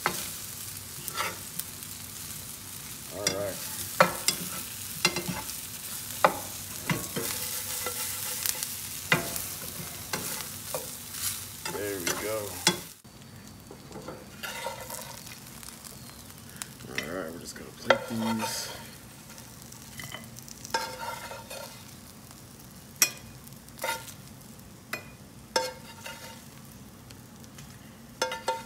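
Oil sizzling in a non-stick frying pan as fried chicken wings are stir-fried with diced peppers, shallots and garlic, a metal utensil scraping and knocking against the pan. About halfway through the sizzle cuts off, leaving scattered clinks and scrapes as the wings are moved onto a ceramic plate.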